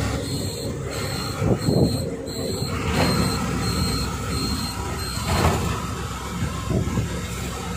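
Truck running at road speed, heard from inside the cab: a steady engine and tyre rumble with road noise, and a few brief knocks or rattles.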